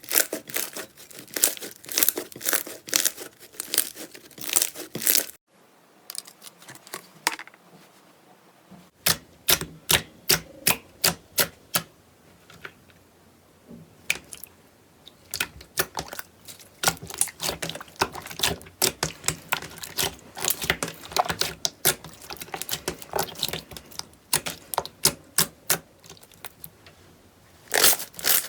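Slime being squeezed and stretched by hand, a dense run of sticky crackling pops and clicks. The crackling stops abruptly about five seconds in and returns a few seconds later as a new clip begins.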